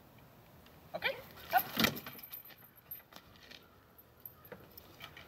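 A dull knock of a dog jumping into a travel crate in an SUV's cargo area, followed by a few light clicks and rattles as the crate door is shut and latched.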